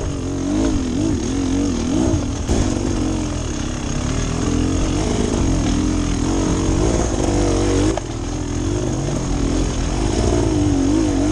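Beta Xtrainer 300 two-stroke single-cylinder dirt bike engine, revving up and down over and over as the throttle is worked on a rocky trail.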